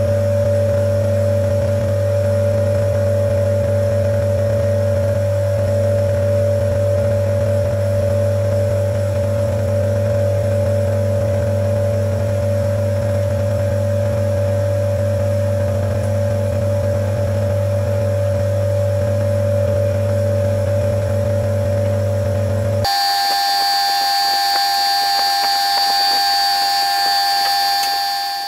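Compressor nebulizer (Omron NE-C28) running with a steady motor hum, the sound sped up fourfold. About 23 seconds in the hum cuts off suddenly and is replaced by a few steady high tones.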